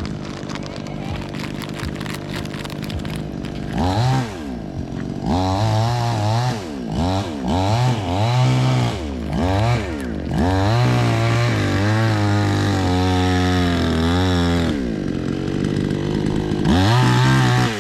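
Small petrol engine idling, then revved up and down again and again, with another brief rev near the end.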